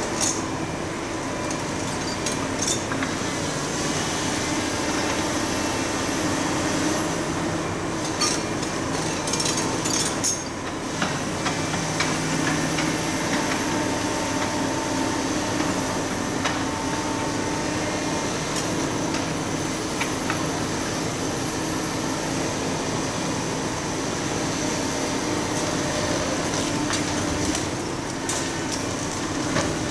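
Excavators demolishing a reinforced-concrete building: a steady diesel engine and hydraulic drone, with bursts of cracking, crunching and clattering concrete as the long-reach arm's attachment breaks the structure and debris falls, most clearly about a third of the way in and again near the end.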